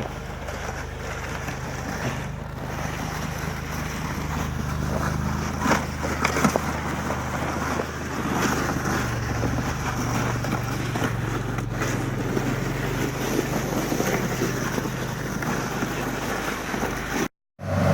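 Steady engine and road rumble heard inside a moving car, with a few sharp knocks about six seconds in. The sound drops out briefly near the end.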